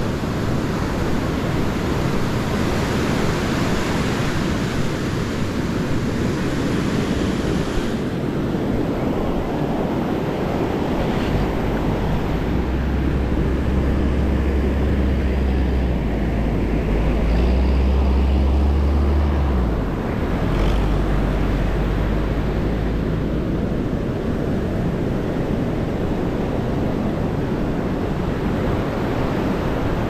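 Surf breaking and washing up a sandy beach, with wind buffeting the microphone, a deep rumble that is strongest through the middle stretch.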